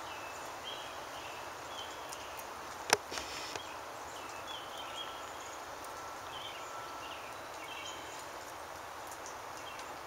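A woodpecker strikes a metal satellite dish once sharply about three seconds in, then twice more faintly. Small birds chirp now and then against a steady outdoor hush.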